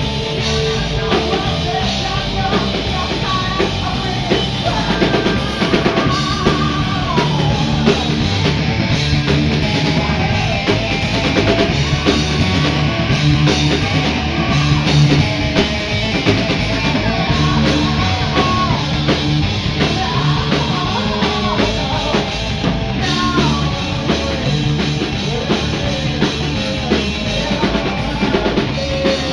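Rock band playing: electric guitar through a Marshall amplifier, electric bass and a drum kit, loud and steady.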